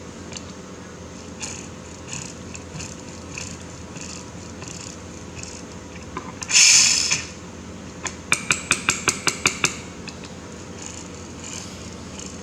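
Hand work on small toy-car parts with tools: light clinks and taps, a short loud burst of noise about six and a half seconds in, then a quick run of about nine clicks.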